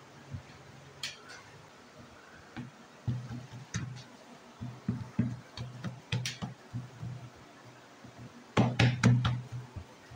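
Hands pressing and patting ube dough into a metal baking tray: irregular soft thuds and sharp knocks, with a quick cluster of louder knocks near the end.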